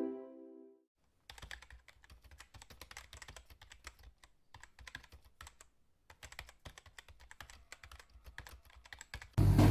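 Keyboard typing sound effect: quick runs of faint clicks with short pauses between them, keeping pace with text being typed onto the screen. Electronic intro music fades out just at the start, and a much louder noise begins just before the end.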